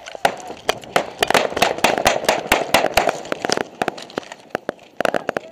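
Small-arms gunfire: many sharp shots in fast, irregular succession, densest in the first few seconds, easing off, then picking up again near the end.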